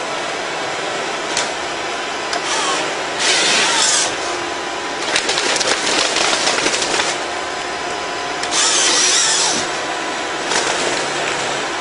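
Walking excavator with a timber harvester head: its diesel engine and hydraulics run steadily while the head's saw cuts the log in several louder, harsher bursts.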